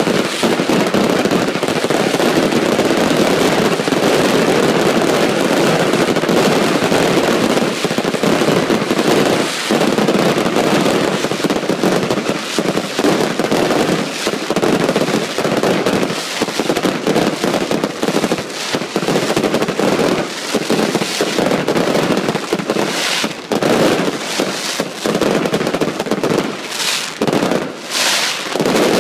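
Daytime fireworks barrage fired from several ground positions: a dense, rapid, continuous stream of launches and bangs. Later it breaks into more separate bangs with short gaps.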